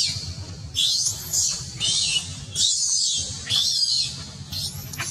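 Infant long-tailed macaque crying: a string of about five shrill, high-pitched calls, each rising then falling, over a low steady hum.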